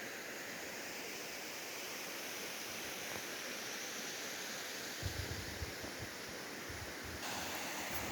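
Steady rushing noise of a waterfall, with a few low wind bumps on the microphone about five seconds in.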